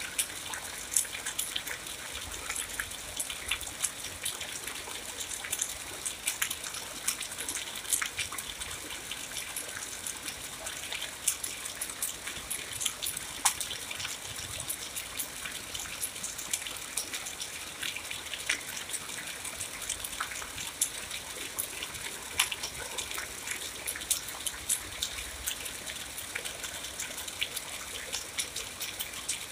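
Steady rain: a continuous hiss with many sharp, close drop hits scattered through it.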